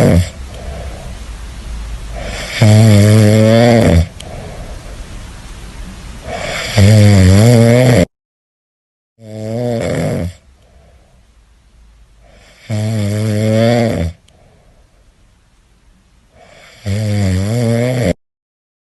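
A cat snoring: a loud, buzzing snore just over a second long about every four seconds, with quieter breathing between. The sound cuts out to silence twice for about a second.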